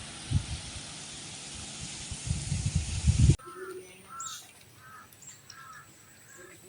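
Wind buffeting the microphone with low thumps. After an abrupt cut about halfway through, a bird calls in a series of short, evenly spaced chirps, about five in a row.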